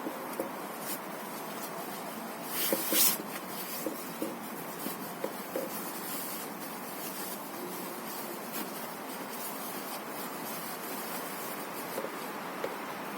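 Steady background noise with a few light clicks and taps, and a brief loud rustle or scrape about three seconds in.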